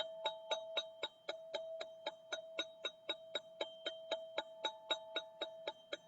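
Gold ZenTube chime sounding in quick, even strikes, about four a second, over one steady ringing tone with bright overtones.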